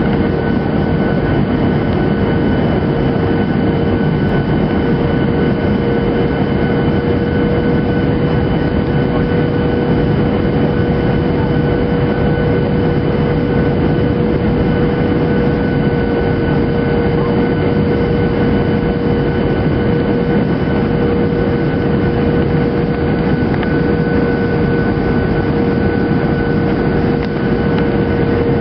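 Cabin noise of a Boeing 737-800 on final approach, heard from a window seat beside the wing: the CFM56 turbofan engines and rushing air make a loud, even noise with a steady hum held at one pitch.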